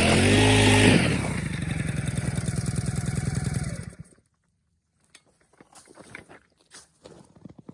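An engine running loudly that briefly rises in pitch, then is cut and winds down in slowing pulses, stopping about four seconds in; faint clicks and scrapes follow.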